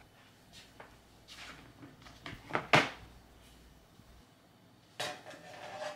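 Quiet kitchen handling sounds of a drawer being opened and shut: scattered knocks, a sharp double clack about two and a half seconds in, then a short rustling scrape about five seconds in.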